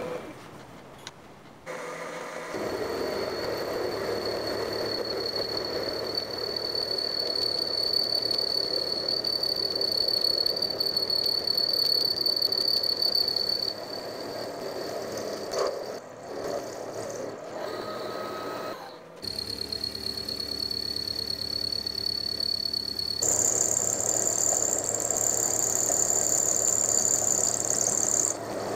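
Vertical milling machine running with an end mill cutting along a long bar: a steady machining noise with a high whistle over it. The sound changes abruptly a few times, and near the end the whistle is higher-pitched.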